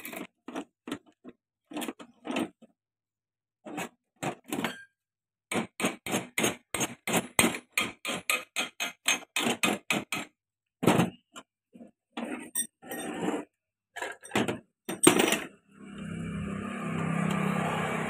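Hammer tapping metal on a tractor's hydraulic lift-lever shaft to seat its lock: runs of short taps, about three or four a second, with pauses between. A steady low hum comes in near the end.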